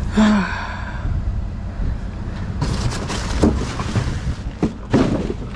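Junk being moved about inside a dumpster: a brief squeal near the start, then several knocks and clatters in the second half, over a steady low rumble.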